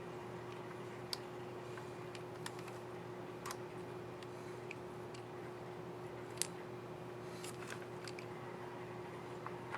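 Small, sharp plastic clicks and taps at irregular intervals, about eight in all, from a laptop keycap and its scissor mechanism being handled on the keyboard. A steady low hum runs underneath.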